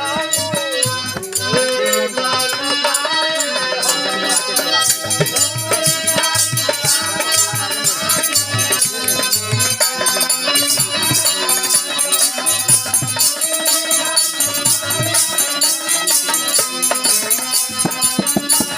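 Bhojpuri birha folk music: a melody over a steady beat of rattling percussion and low drum strokes.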